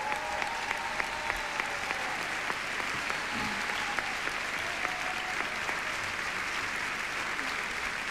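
Large seated audience applauding, separate claps at first thickening within a couple of seconds into steady, dense applause.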